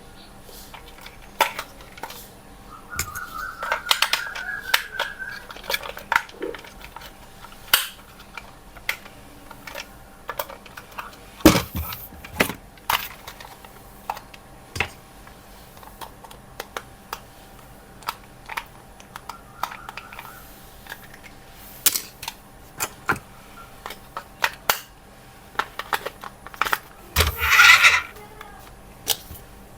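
Hard plastic toy parts clicking, knocking and clattering as they are handled, with a short rising whine about three seconds in, a fainter one near twenty seconds, and a louder rustling burst near the end.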